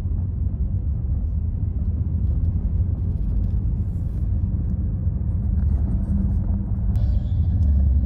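Car driving, heard from inside the cabin: a steady low rumble of road and engine noise, with a faint hiss joining near the end.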